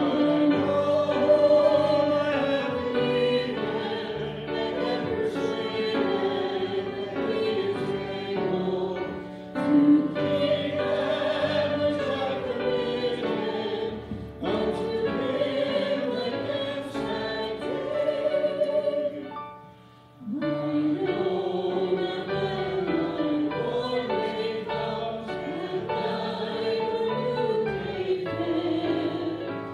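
Hymn singing: voices carry a melody in long held phrases, with a short break about twenty seconds in.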